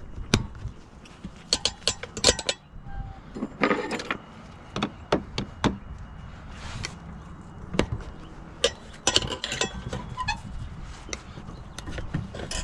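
Metal tire spoons clinking and scraping against a dirt bike wheel rim as the tire bead is levered off: a string of irregular sharp clicks and knocks with short scraping sounds between.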